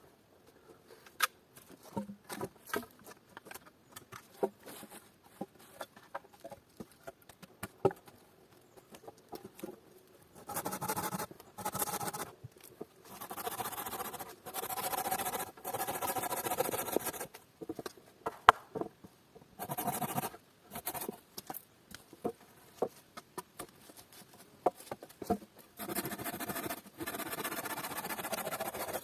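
Hand work on wood and stone: scattered small knocks and clicks, then several stretches of steady rasping, each a few seconds long, with knocks between them.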